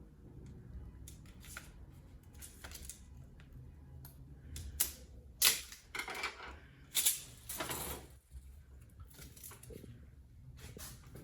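Plastic clicking and rattling as a thin PVC grid cover is handled and fitted onto a drop-ceiling grid, with a cluster of louder snaps and clatters in the middle.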